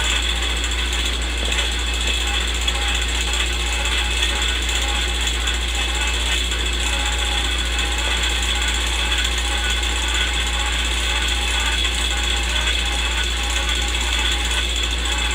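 Old-film sound effect: a movie projector running, with a steady low hum and hiss under a fine mechanical chatter.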